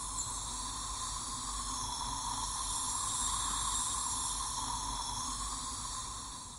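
A steady airy hiss with no clicks or knocks, swelling a little in the middle and fading away near the end.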